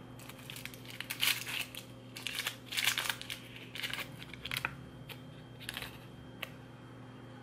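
Paper wrapper of a Dum Dums lollipop crinkling as it is pulled open by hand: a string of irregular crackles, loudest in the first three seconds, thinning out to a few last crinkles near the end.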